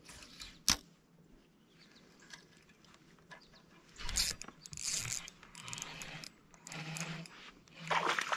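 Spinning reel being cranked as a small hooked bass is reeled in and swung into the boat, with irregular splashing and rattling in the second half and one sharp click about a second in.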